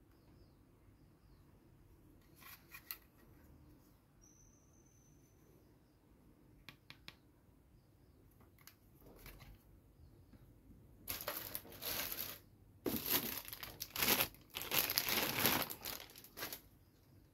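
Clear plastic packaging crinkling in several loud bursts through the second half as the toy belt buckle is handled and lifted out. Before that there are a few light clicks from the plastic parts being handled.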